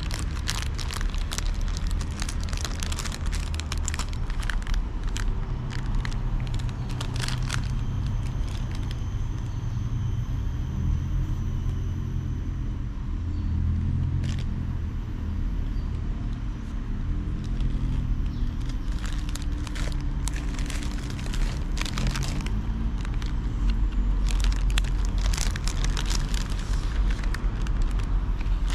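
Thin plastic bread bags crinkling and crackling as hands handle and open packaged soft buns, in clusters at the start and through the second half. A steady low rumble runs under it all.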